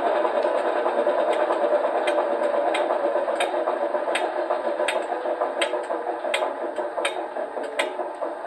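Class 26 diesel locomotive's Sulzer engine sound, played by a LokSound v5 DCC decoder through the O gauge model's speaker, idling steadily and slowly getting quieter. A sharp click repeats about every 0.7 s over it.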